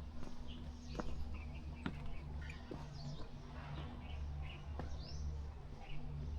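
Small birds chirping in short, scattered calls over a steady low rumble, with a few sharp clicks.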